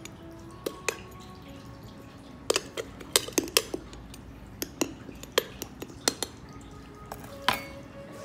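Small metal spoon clinking and scraping against the glass walls and rocks of a terrarium while spooning soil: a quick run of sharp clinks in the middle, then one more near the end.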